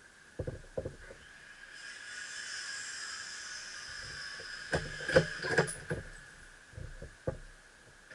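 Sharp clicks and knocks from a scoped .30-06 rifle being handled at a wooden shooting bench. There are two near the start, a quick cluster about five seconds in, and two more near the end, over a faint steady high tone, with a soft hiss in the middle.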